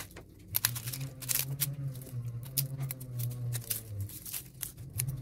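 Dry, papery onion and garlic skins crackling and rustling in irregular sharp snaps as they are peeled off by hand, over a low steady hum.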